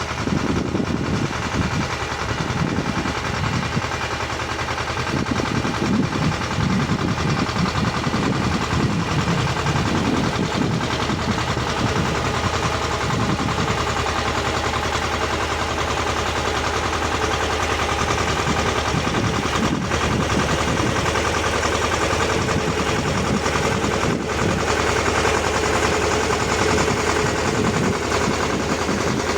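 Walk-behind rotary tiller running steadily under load, its small single-cylinder engine firing in a rapid, chattering beat as the tines work the soil.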